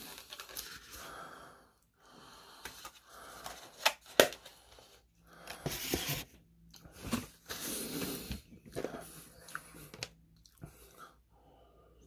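Mouth sounds of someone eating close to the microphone: chewing and noisy breaths, with a couple of sharp clicks about four seconds in.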